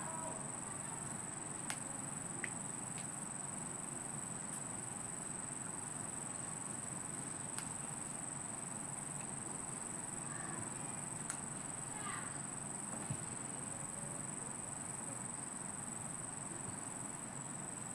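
Insects droning steadily outdoors, one high even tone that never breaks, with a few faint sharp clicks scattered through.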